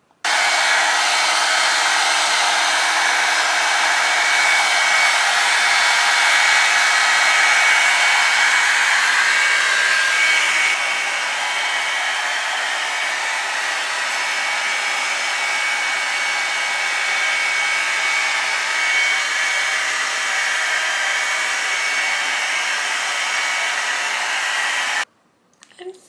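Revlon One Step hot-air brush dryer running steadily, a loud blowing hiss with a thin high motor whine. It drops slightly in level partway through and cuts off suddenly near the end.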